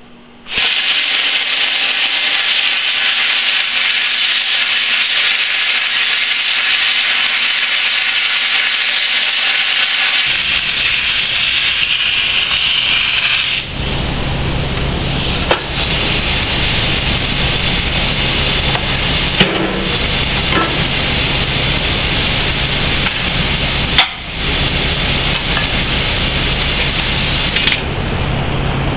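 Plasma cutter cutting lengthwise along rectangular steel tubing: a loud, steady hiss of the arc and air that starts suddenly, broken off briefly twice, about halfway and about three quarters through. A low steady hum joins about ten seconds in.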